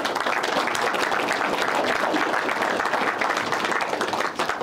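Audience clapping steadily, a dense patter of many hands that stops abruptly about four and a half seconds in.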